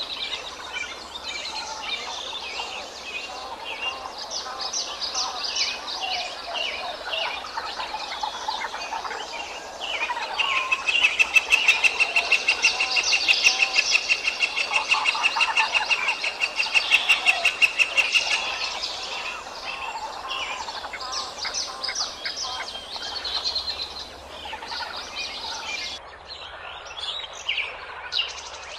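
A chorus of birds chirping and calling over one another, with a louder, fast trill coming in about ten seconds in and lasting some eight seconds.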